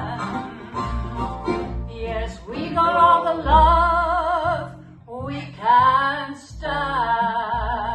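A small band playing an acoustic folk song: strummed acoustic guitar and bass under a lead melody line that holds long, wavering notes with vibrato.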